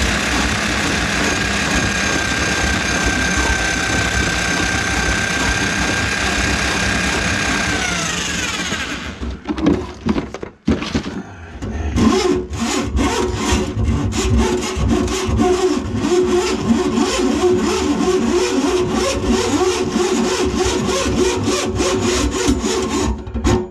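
Electric drum drain auger running steadily, its motor winding down about eight seconds in. After a short break it runs again with rapid rattling clicks as the spinning cable works through a grease-clogged kitchen sink drain.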